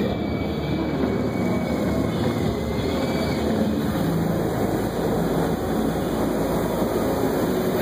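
Automatic tunnel car wash working over the car, heard from inside the cabin: a steady rush of water spray and wash machinery on the body and windshield.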